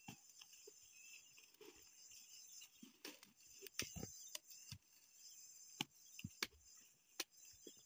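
Steady high drone of insects, with scattered sharp knocks and snaps, about seven of them from a few seconds in, as woody cassava stalks are handled and chopped with a machete at the harvest pile.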